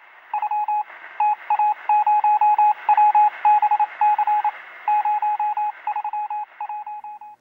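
Morse code-style beeping: a single steady tone keyed in short and long pulses over a hiss of radio static, cutting off abruptly at the end.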